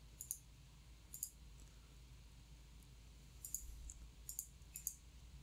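Computer mouse button clicks: about six or seven short, sharp clicks at an irregular pace, most of them in the second half, as menu checkboxes are clicked off one by one.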